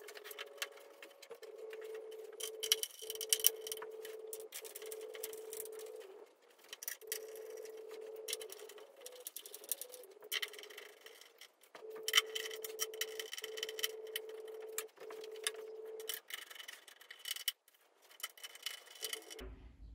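Screws being driven by hand with a screwdriver into the treadmill deck's suspension mounts: spells of clicking and scraping metal on plastic and wood. A steady humming tone runs underneath in stretches and stops shortly before the end.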